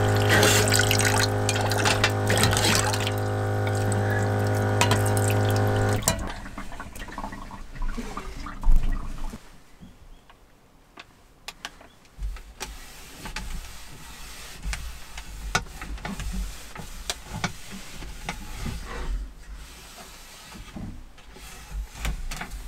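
Small electric faucet pump humming steadily while water pours from its spout into a bowl in a dish basin; the pump and the water stop together about six seconds in. After that, light rubbing and small knocks of a cloth wiping a wooden table, with one sharp knock about nine seconds in.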